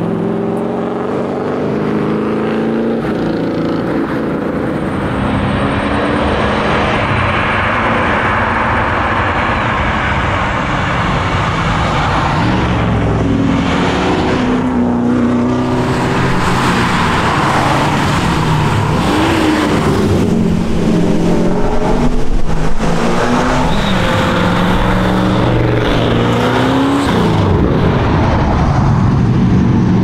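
EH Holden's 350 small-block Chevrolet V8 running under load and revving through the gears: its pitch climbs repeatedly and drops back at each change.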